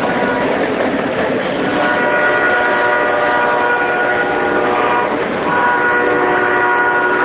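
Double-stack intermodal freight cars rolling past on a curve, with a steady wheel-and-rail rumble. From about two seconds in, several steady high tones sound together over it, dipping briefly and then resuming.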